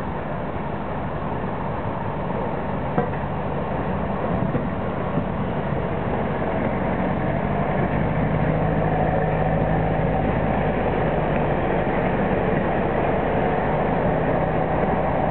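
1944 Willys MB jeep converted to run on rails, its four-cylinder Go-Devil engine running and its flanged wheels rolling along the track, growing steadily louder as it approaches. A single click about three seconds in.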